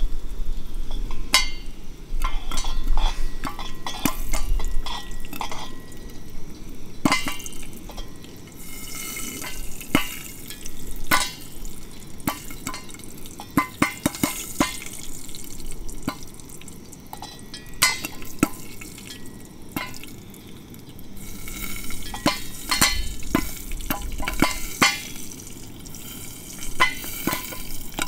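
Cooking in a pot with bacon grease: a sizzling hiss that swells twice, with many scattered sharp clicks and clinks.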